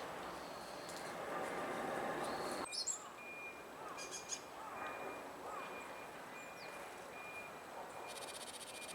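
Small wild birds calling against faint outdoor background noise: a series of short, evenly repeated high notes about every half second, a few softer arching notes, and a brief high buzzy trill near the end. The background changes abruptly about a third of the way in.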